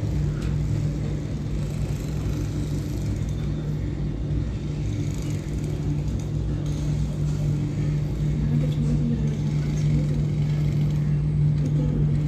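Steady low hum and rumble inside a moving aerial ropeway cabin as it runs along the cable, growing slightly louder toward the end.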